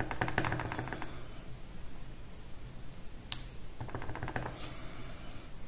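A small stamp tapped quickly and repeatedly on an ink pad, then a single sharp click about three seconds in as it is set down, followed by another quick run of taps: inking and stamping small foliage images onto cardstock.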